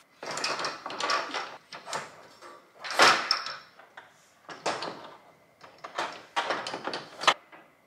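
Clattering and knocking of a Diggs Revol crate's wire puppy divider being worked into place inside the crate, in a run of irregular rattles with one louder knock about three seconds in.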